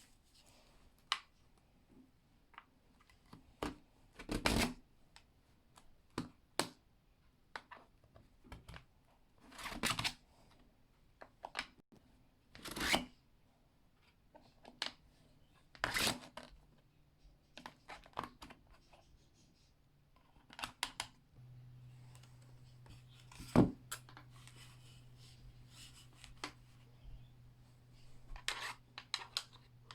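Irregular handling sounds: scattered clicks, taps and rustles of small objects being picked up and set down. A low steady hum comes in about two-thirds of the way through.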